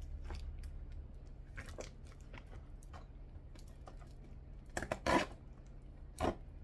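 Packaging being handled and torn open: scattered rustles and clicks, with two louder tearing sounds about five and six seconds in.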